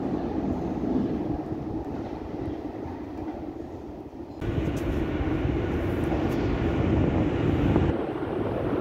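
U-Bahn train rumbling through the tunnel as it approaches the platform, a steady low rumble of wheels on rails. It jumps abruptly louder about four seconds in and grows louder toward the end.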